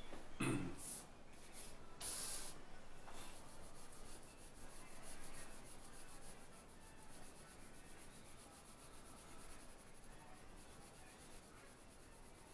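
Pencil shading on paper: a few louder scratchy strokes in the first couple of seconds, then a steady run of quick, faint hatching strokes. A brief low thump about half a second in.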